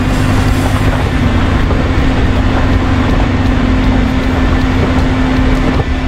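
Small car's engine running under load as it climbs a steep, rocky dirt track, a steady low drone with rumble and road noise throughout. The engine is straining on a road meant for 4x4s.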